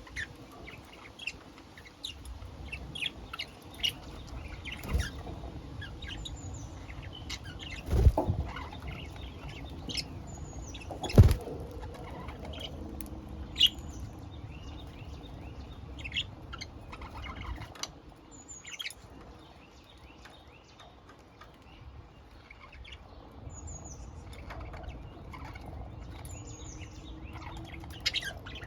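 Pet budgerigars chirping and chattering in short, frequent calls, with a couple of sharp knocks about 8 and 11 seconds in.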